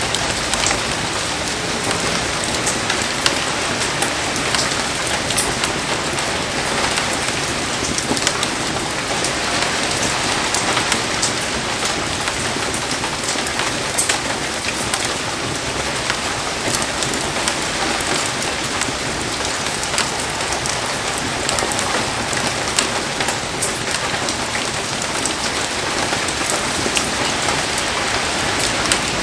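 Heavy rain pouring steadily, with many small sharp taps of drops striking close by.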